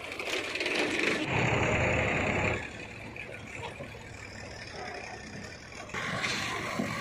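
JCB 3DX backhoe loader's diesel engine running under load as the machine works and drives over loose soil. It is loudest for the first two and a half seconds, drops back, then rises again near the end.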